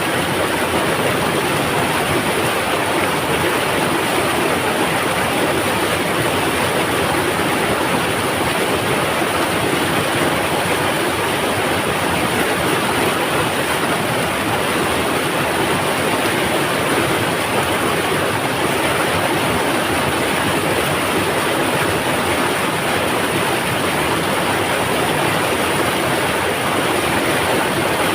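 Mountain river rushing over rocks: a steady, loud, rumbling roar of water.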